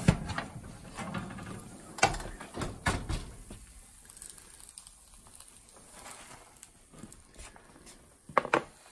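Metal baking sheet being pulled from a wire oven rack, scraping and rattling against it, with sharp metallic clanks. The loudest clank comes near the end, as the sheet is set down on the counter.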